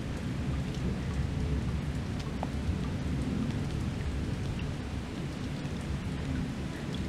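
Steady rain with a continuous deep rumble of distant thunder.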